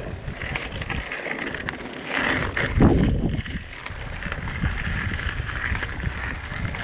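Mountain bike rolling over a loose gravel trail: a steady crunch and rattle of tyres on gravel, with wind on the camera microphone and one louder low rumble about three seconds in.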